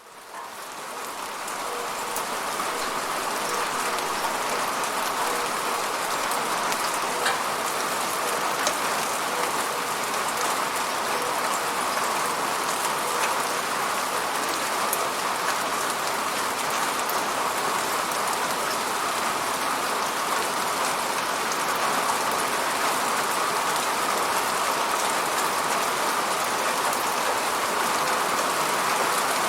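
Steady rainfall hissing on a surface, with scattered individual drop ticks, fading in over the first couple of seconds.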